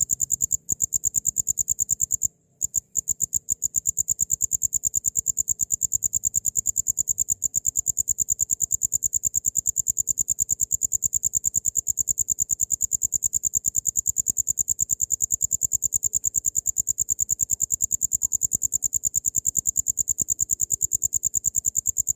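Cricket chirping: a loud, high-pitched trill of rapid, evenly spaced pulses that runs on without a pause except for a brief break about two seconds in.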